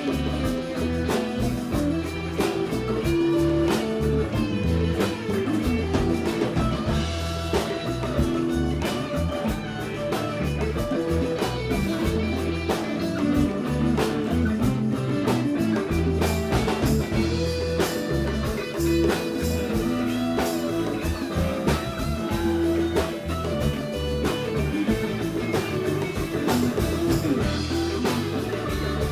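Instrumental break of a rock band: electric guitar playing over bass and a drum kit, with no vocals.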